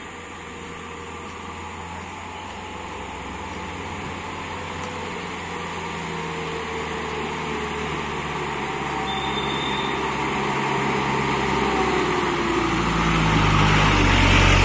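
Light box truck's engine approaching on the road, growing steadily louder until the truck comes right alongside near the end.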